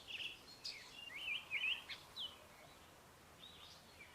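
Greater double-collared sunbird twittering: quick, high chirping notes in rapid jumbled runs for about the first two seconds, then a few fainter chirps near the end, over faint outdoor hiss.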